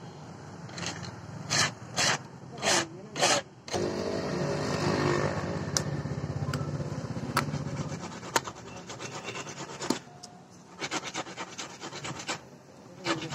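Screw cap of a plastic engine-oil jug being twisted open by hand: a steady rasping scrape of plastic on plastic, with a few loud knocks of the jug being handled at the start and scattered small clicks near the end.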